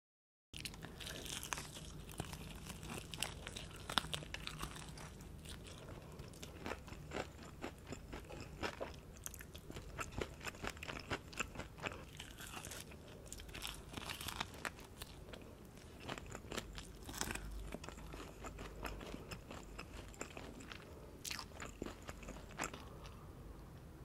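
Close-miked crunching and chewing of crispy battered spicy fried chicken: bites through the crust and chewing with many sharp crackles, starting after half a second of dead silence.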